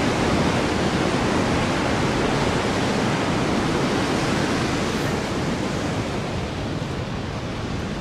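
Heavy ocean surf breaking on a rocky beach below, heard as a steady, even roar that eases slightly toward the end.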